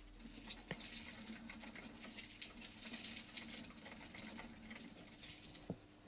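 Mongolian gerbils running in a wooden exercise wheel: a quick patter of small feet over a low whir of the turning wheel, which stops shortly before the end with a single click.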